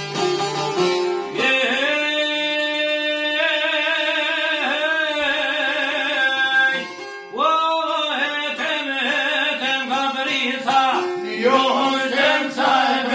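Albanian folk song: a man sings long, held, wavering lines over several plucked long-necked lutes (çifteli and sharki). The voice comes in about a second and a half in, breaks briefly near the middle, and resumes.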